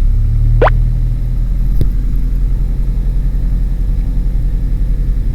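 Light aircraft's piston engine running steadily at taxi power, a low even drone. A short rising squeak sounds about half a second in, and a single click near two seconds.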